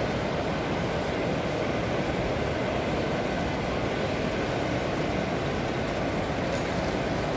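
Steady, even background din of a busy model railway exhibition hall.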